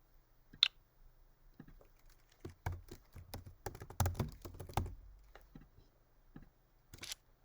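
Typing on a computer keyboard: faint, irregular key clicks, coming thickest in the middle.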